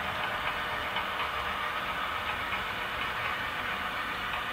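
HO scale model freight cars rolling past on track, with a steady whir from their wheels on the rails.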